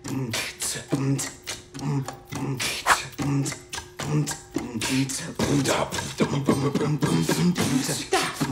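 Beatboxing: a steady rhythm of mouth-made drum sounds with a pitched low pulse, about two beats a second.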